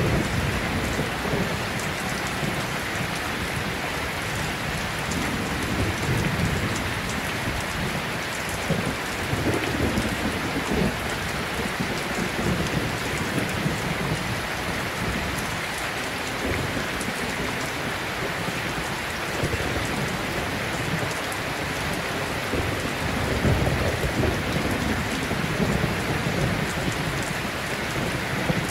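A steady rain-like hiss with low rumbles swelling every few seconds, as of rain with distant thunder.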